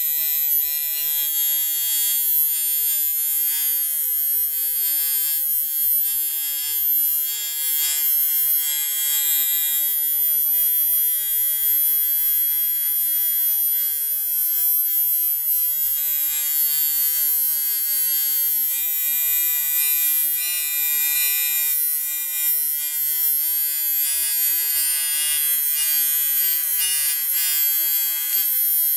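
TIG welding arc buzzing steadily and high-pitched as filler rod is fed into the aluminium cylinder head of a Volkswagen 1.9 diesel. The weld is filling a crack ground out at the prechamber.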